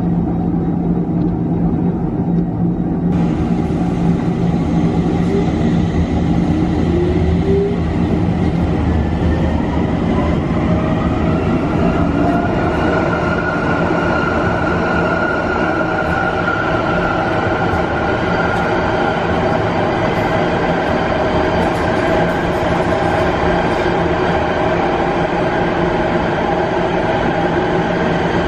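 Stadler Tango tram running on rails, heard from the driver's cab: a steady rumble of wheels and running gear. From about a third of the way in, the electric traction drive's whine rises slowly in pitch as the tram gathers speed, then holds steady.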